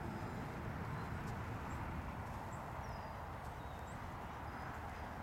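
Steady outdoor wind noise rumbling on the microphone, with a few faint, high, short chirps.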